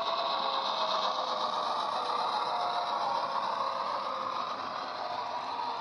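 The DCC sound decoder of a model Irish Rail 121 class diesel locomotive plays its EMD engine sound through the model's small speaker as the locomotive passes, steady in level. The rattle of the model train's wheels on the track runs with it.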